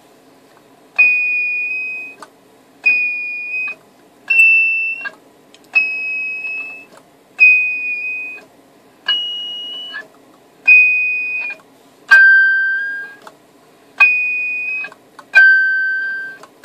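Browning Golden Eagle Mark IV CB radio's 'Browning ping': a short, high-pitched tone from the radio's speaker each time the microphone is keyed, about ten in a row, roughly every second and a half, each starting sharply and fading. The pitch shifts from ping to ping as the microphone is turned, dropping lower twice. The ping is feedback: for a split second the radio is in receive and transmit at once, and the receiver's audio feeds back into the transmitter.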